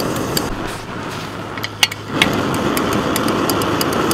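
A 1962 Primus brass paraffin pressure stove burning after pre-heating and pumping: a steady rushing noise with irregular crackles and pops. It dips for a moment, then comes back louder about two seconds in.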